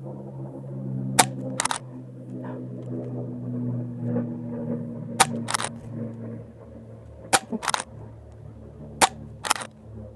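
Umarex Zelos .22 regulated PCP air rifle firing four shots a few seconds apart. Each shot is a sharp crack followed about half a second later by a second, quieter click. A low steady hum runs underneath.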